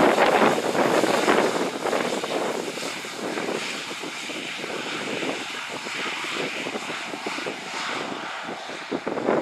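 A Fairchild C-26 Metroliner's twin Garrett TPE331 turboprop engines running at power on the takeoff roll. The sound is loud in the first second or two, then fades as the aircraft moves away down the runway.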